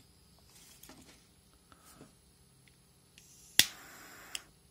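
Butane torch lighter's piezo igniter snapping once about three and a half seconds in, followed by a brief hiss of the torch jet that stops with a click when the trigger is let go. Faint handling clicks come before it.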